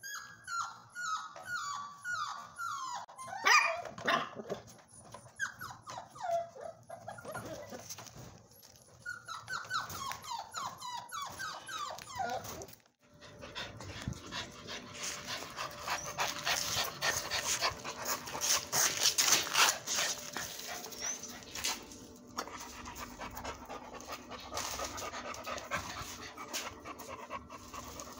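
American Bully puppies whining, with many short cries falling in pitch, a few a second, for about twelve seconds. After a short break an adult American Bully pants hard and fast close up.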